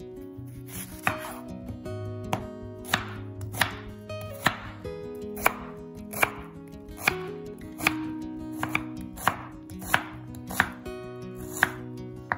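A kitchen knife cutting food on a cutting board in slow, evenly spaced strokes, about fifteen sharp cuts a little more than one a second, over soft background music.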